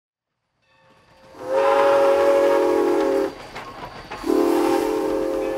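Steam locomotive's chime whistle blowing two long blasts, several tones sounding together. The first blast fades in from silence, and the second runs on past the end.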